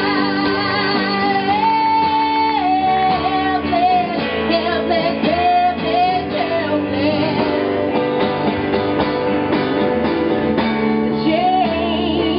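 Acoustic song: a voice singing a slow melody with long held notes over guitar accompaniment.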